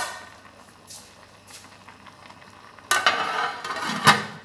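Aluminium lid being put on a pot of boiling rice: a short click at the start, then a loud scraping, rattling rush of metal on the pot rim lasting over a second, ending in a metallic clank as the lid seats.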